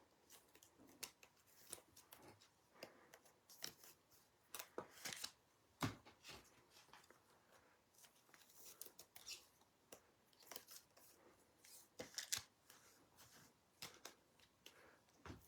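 Faint, scattered clicks and brief rustles of trading cards being handled and slid past one another.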